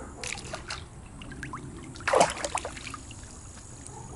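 Swimming-pool water splashing and trickling as a swimmer strokes through it, with a louder cluster of splashes about two seconds in.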